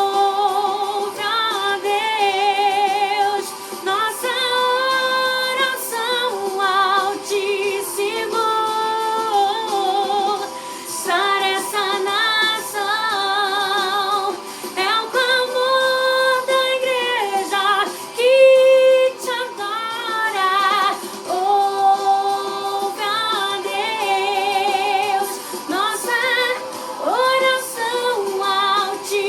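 A woman singing a gospel song solo, in long held phrases with strong vibrato.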